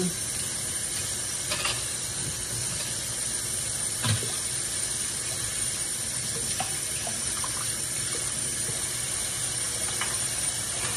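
Kitchen tap running steadily into the sink while dishes are washed by hand, with a few faint clinks of dishes, the clearest about four seconds in.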